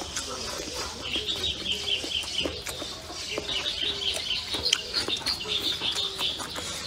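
Chickens clucking in short repeated calls, with quick runs of high chirping, over close chewing sounds.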